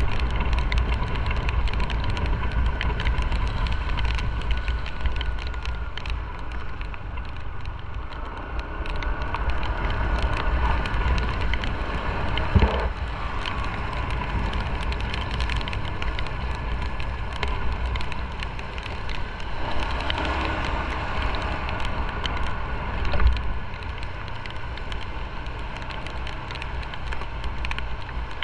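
Motorcycle riding on a wet city street in the rain: the engine running under wind buffeting on the microphone and tyre hiss on the wet road, with scattered ticks of raindrops hitting the camera. Two brief knocks, about halfway through and near the end.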